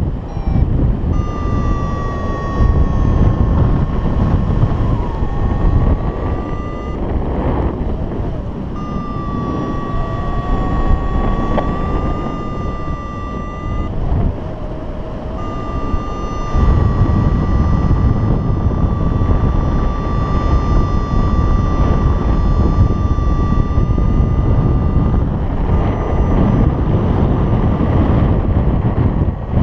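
Wind rushing over the microphone of a paraglider in flight. A steady electronic tone from the harness-mounted flight instruments sounds over it in long stretches, with brief breaks.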